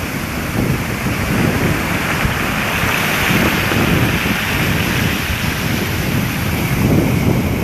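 Storm surf: heavy swell breaking and washing ashore, one wash swelling up around the middle. Gusty wind buffets the microphone throughout.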